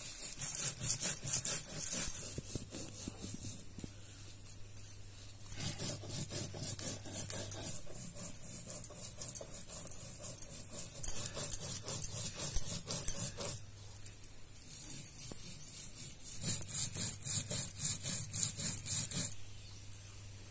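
A knife scraping and cutting sponge gourd in rapid, rhythmic strokes, in three bursts with short pauses between.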